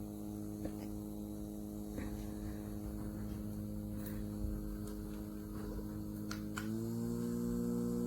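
JISULIFE 3-in-1 mini portable fan's small motor running with a steady hum. About six and a half seconds in, a click or two, then the pitch steps up as the fan switches to a faster speed.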